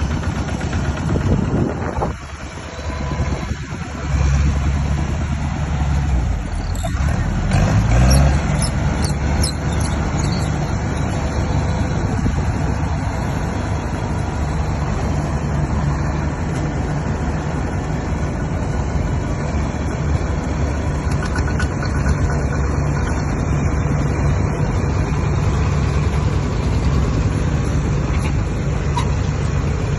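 Diesel engine of a Kubota heavy machine running steadily, with a brief dip in level about two seconds in and a run of short clicks around eight seconds in.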